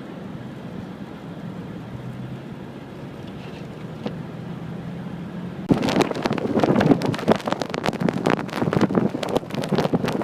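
A vehicle's engine running steadily, heard from inside. About two-thirds of the way through, loud gusting blizzard wind suddenly hits the microphone and keeps buffeting it.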